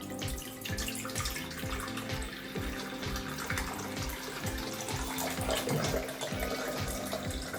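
Water running from a tap into an electric kettle, over background music with a steady beat.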